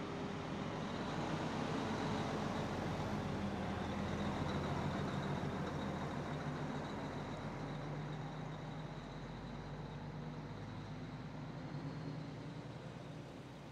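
Peterbilt semi-truck's diesel engine running as it pulls a fuel tanker trailer slowly past and away, loudest a few seconds in and fading toward the end.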